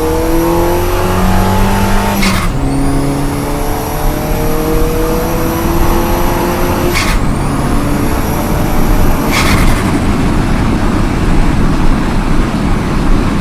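Golf GTI Mk4's turbocharged 1.8 20v four-cylinder accelerating hard through the gears, its pitch rising in each gear while a high turbo whistle climbs. A short burst of turbo flutter comes at each throttle lift, about two, seven and nine seconds in. After the last lift the engine note gives way to steady road and wind noise.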